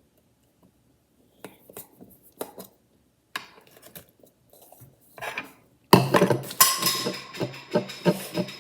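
Faint handling sounds, then from about six seconds in a loud, rapid clatter and scraping of a small metal slime container's lid being worked open, with a slight metallic ring.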